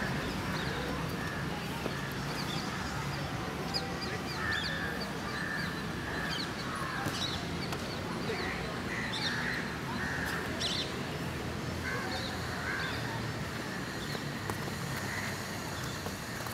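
Birds calling repeatedly from the surrounding trees: short, rough calls every second or so, with a few sharper high chirps, over a steady outdoor background.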